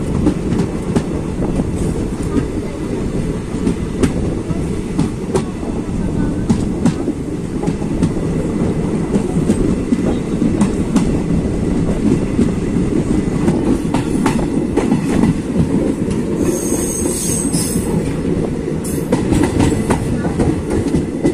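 Passenger train coaches running along the track as heard from an open doorway, gathering speed after departure: a steady rumble of wheels on rail with irregular clicks over rail joints. A brief high-pitched wheel squeal comes about three-quarters of the way through.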